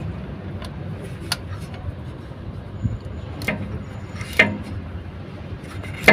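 A few short, sharp clicks and taps of hand tools working the screws of a 4WD actuator motor, over a steady low hum.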